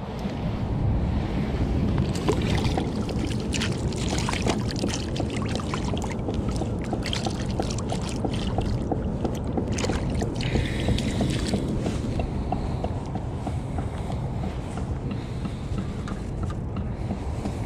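Wind buffeting the microphone in a steady low rumble, with scattered clicks and scuffs of gear handling and footsteps on wet sand.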